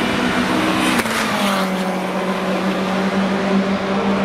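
Race-tuned 2.3-litre Duratec four-cylinder engine of a Ford Focus Silhouette race car, pulling hard with its note climbing in steps. The sound changes abruptly about a second in to a steadier engine note with a falling sweep in pitch.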